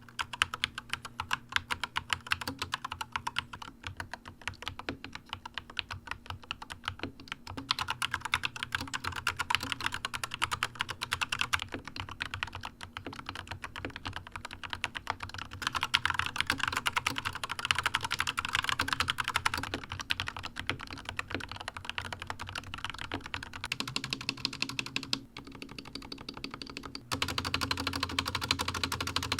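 Fast continuous typing on a fully lubed Corsair K70 RGB Pro OPX keyboard with Corsair optical switches (switches lubed with a Drikote 116 and Krytox mix, springs with Krytox 105, stabilizers with Permatex). It is a dense stream of keystroke clacks that comes in several stretches, each a little louder or softer than the last.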